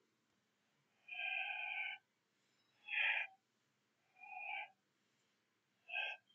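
A man's breathy, unvoiced exhalations, four separate puffs of breath, the first about a second long and the others shorter.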